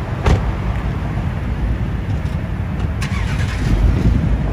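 A police car's door shuts with a sharp knock about a third of a second in, over the low rumble of a car engine running; another knock comes about three seconds in.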